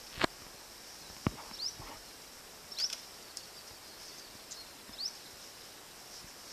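Steady high insect drone with a few short, rising bird chirps, broken by sharp snaps or cracks, the two loudest in the first second and a half and more near three seconds in.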